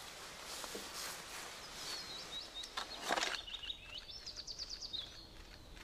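A small bird chirping in a quick run of high notes over quiet woodland background. About three seconds in there is a single rustle, like a step in dry leaf litter.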